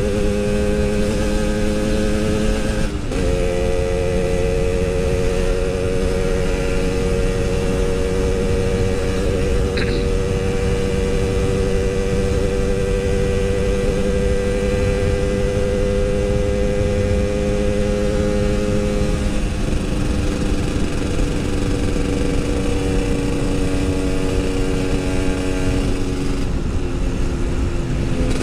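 Yamaha RX-King 135cc single-cylinder two-stroke engine running steadily on light throttle while warming up. Its pitch holds nearly level, with a brief dip about three seconds in and small shifts in pitch later on.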